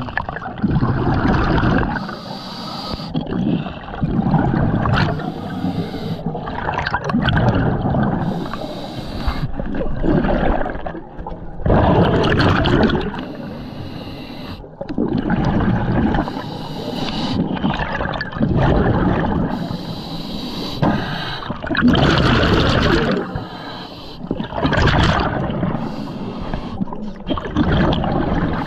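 A scuba diver breathing through a regulator underwater: each breath a short hiss in, then a longer gurgling rush of exhaled bubbles, repeating every three to four seconds.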